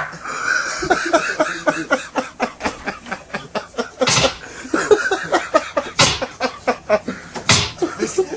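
Men laughing hard in quick bursts. Three loud, sharp smacks land about four, six and seven and a half seconds in.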